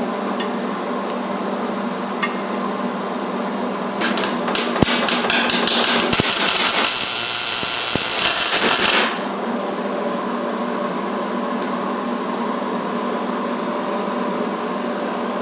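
A welding arc crackles for about five seconds, starting about four seconds in. It is run with too little shielding gas, which leaves an ugly, porous bead. Under it, shop fans hum steadily.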